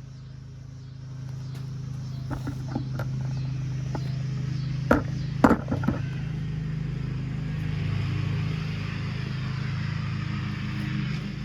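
A steady low electric-motor hum that grows louder after about a second. A few sharp knocks and clatters come around the middle, then a rising hiss.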